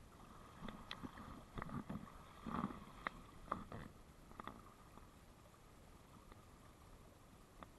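Shallow river running steadily, with a scatter of irregular small clicks, knocks and splashes in the first half from wading and handling the fly rod and line.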